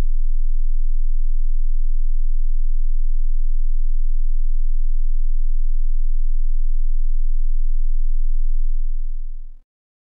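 A 20 Hz sine-wave test tone, held at a steady level, fading out near the end. At 20 Hz it sits at the bottom edge of human hearing and is meant to test low-frequency hearing and a speaker's bass reach: it is barely audible and mostly felt as the speaker cone vibrating.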